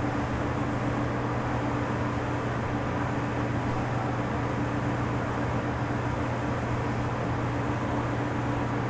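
A steady low mechanical hum with an even rush of noise over it, unchanging throughout, with no knocks or clicks.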